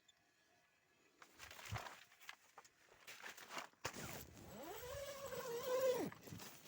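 A cat meowing once, one long call that rises, holds and falls away, after a few seconds of rustling and scuffing.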